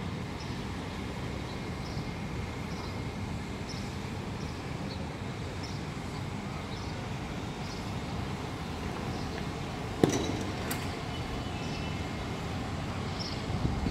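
Sandstorm wind blowing, a steady low rumble, with faint short high peeps repeating every second or so and a single sharp click about ten seconds in.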